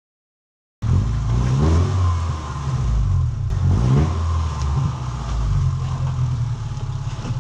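Subaru engine revving in and out, its pitch climbing twice, cutting in suddenly about a second in.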